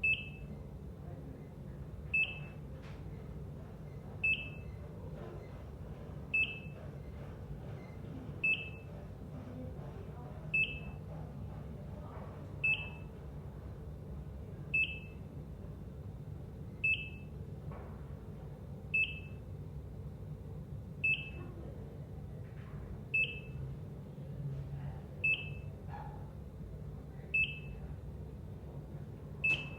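Heart monitor (ECG) beeping: a short, high beep about every two seconds, steady and even, over a low steady hum.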